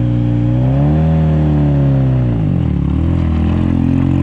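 1983 Mazda RX-7's 12A rotary engine running: its steady note rises about a second in, holds briefly, then drops low before settling back to a steady pitch.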